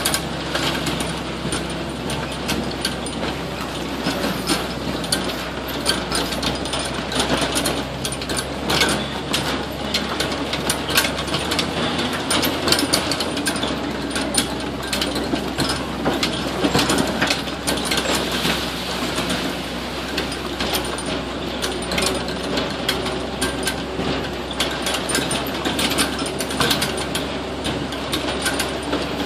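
Swamp buggy engine running steadily as the open vehicle drives over a bumpy sand trail, with many short rattles and knocks from the vehicle throughout.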